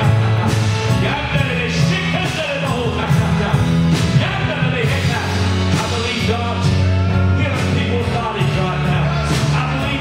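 Live praise band music: a drum kit with repeated cymbal crashes over sustained low bass notes, with a voice singing.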